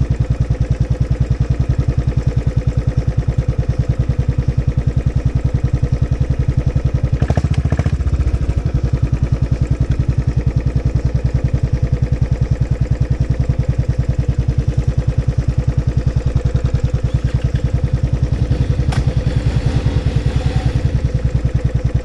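Royal Enfield Classic 500's single-cylinder engine idling, a steady run of evenly paced thumps.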